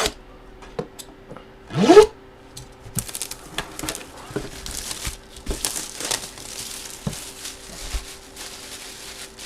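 Plastic wrapping on a trading-card box crinkling and rustling as it is handled and peeled off, with scattered small clicks. A short, loud rising squeak comes about two seconds in.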